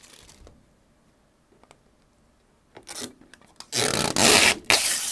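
Protective plastic film being peeled off an acrylic diffusion panel. After a quiet stretch come a few short scratchy tears, then a loud zipper-like ripping, in two pulls of about a second each near the end.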